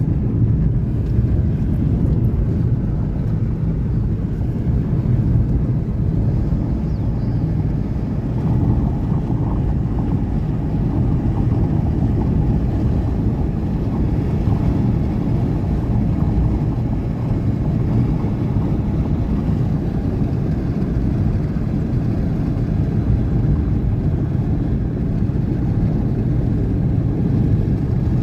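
Steady low rumble of a Boeing cargo jet's engines, mixed with wind buffeting the microphone.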